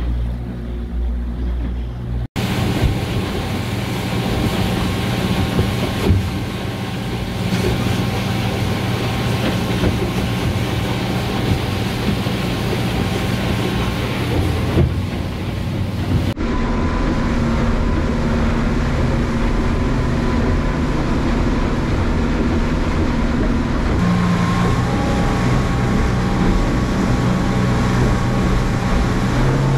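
Mercury 200 V6 outboard running steadily at speed during its break-in, with wake water rushing past the hull and wind on the microphone. The sound changes abruptly twice, about two seconds in and about halfway through.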